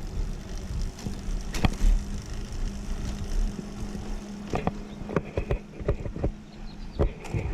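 Recumbent trike riding noise: a steady low rumble of road and wind on the microphone under a faint hum, with a run of clicks and knocks in the second half.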